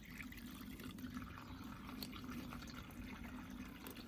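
Faint trickle of water over a steady low hum, with a few small ticks.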